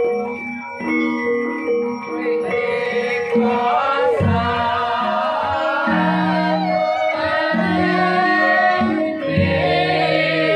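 A Javanese gamelan playing, its bronze metallophones and kettle gongs ringing in held tones. A sinden, the ensemble's female solo singer, joins about three and a half seconds in with a bending, ornamented vocal line over the instruments.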